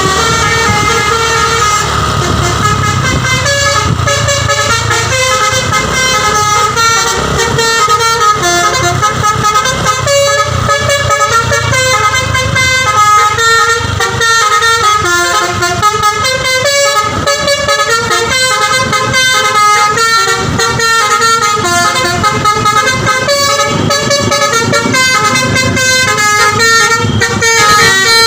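Basuri V3 multi-tone telolet horn on a tour bus playing a continuous tune, with the notes changing several times a second. The bus engine runs low underneath in the first several seconds.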